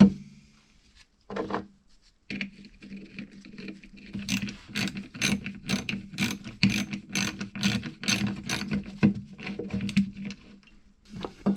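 Recoil pull-start pulley of a 6.5 hp pressure-washer engine being turned by hand to wind up the recoil spring, giving a regular run of ratcheting clicks, about three a second.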